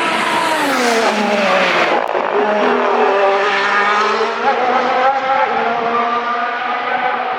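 Ferrari F1-75 Formula 1 car's 1.6-litre turbocharged V6 hybrid engine at speed. The engine note drops over the first two seconds, then climbs again in steps, as on gear changes, and holds steady toward the end.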